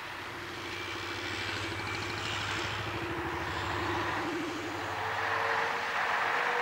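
City bus engine running as the bus drives past, a steady low rumble over road noise, with a faint whine that rises slightly in pitch over the last couple of seconds.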